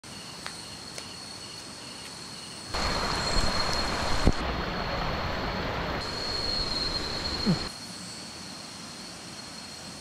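Insects chirping steadily with a high, constant trill. A loud, even rushing noise cuts in abruptly about three seconds in and stops just as abruptly near eight seconds, with a sharp click partway through.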